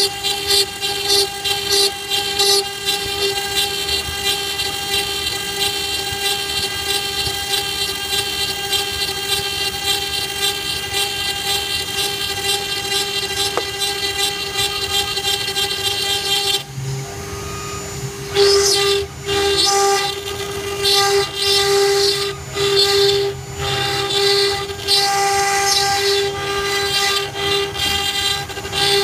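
CNC router spindle running with a steady whine while its engraving bit grinds into a stone slab. About 17 seconds in the sound drops briefly, then the cutting comes in uneven, louder bursts.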